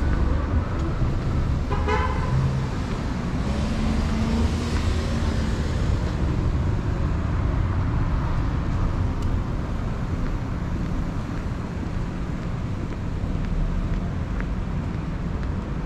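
Street traffic noise, a steady low rumble, with one short car horn toot about two seconds in.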